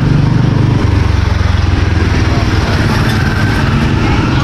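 Motor vehicle engine running close by, a low pulsing drone whose note drops about a second in, over street noise.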